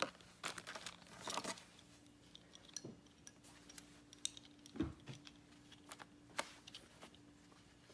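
Small construction-toy pieces clicking and clinking as they are handled, with a brief rustle about a second and a half in; the clicks come singly every second or two.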